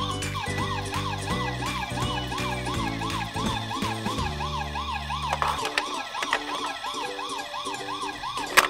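Emergency-vehicle siren sound, a quick repeating rising yelp about three times a second, over background music that stops partway through. A single sharp click comes near the end.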